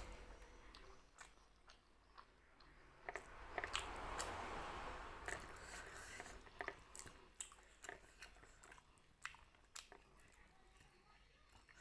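Close-miked chewing and biting of food, with scattered wet mouth clicks and a few crunches. It is faint, with a louder stretch of chewing a few seconds in.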